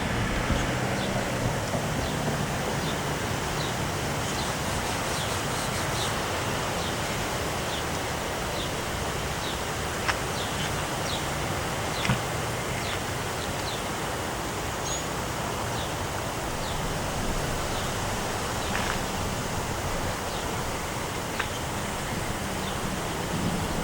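Steady wind blowing outdoors, an even rushing noise, with faint short chirps recurring about once a second and an occasional light tick.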